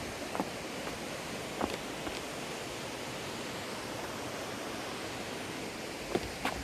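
Steady rushing of water from Mallalli Falls, with a few short sharp clicks over it.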